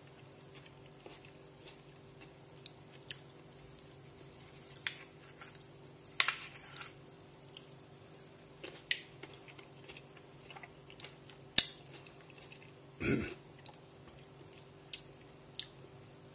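Handling of a small ceramic bowl and metal spoon: scattered light clicks and knocks, a dozen or so spread irregularly, with one slightly longer scrape about two-thirds of the way in, over a faint steady hum.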